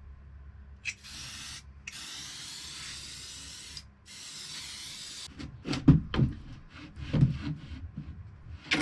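Hissing, rubbing noise in three stretches of about a second each, then a run of irregular knocks and thumps.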